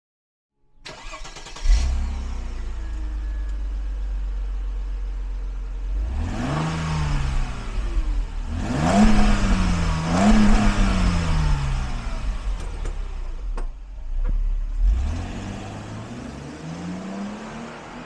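The exhaust of a 2000 Mercedes-Benz SL 320's 3.2-litre V6 starting about a second in with a short loud flare, then idling steadily. It is revved several times, with two quick blips in the middle, and the revs rise once more near the end as the car pulls away.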